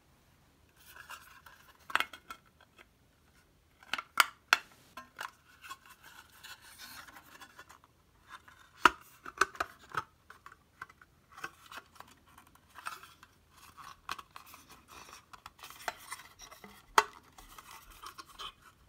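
Sheet-metal lid of an Apple IIc power supply being handled and pressed onto its metal frame: scraping and rubbing of metal on metal, with several sharp clicks as the press-fit lid seats.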